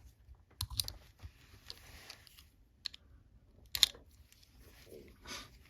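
Key inserted into a four-lever padlock and turned, giving scraping and several sharp metallic clicks from the levers and bolt, the loudest about four seconds in.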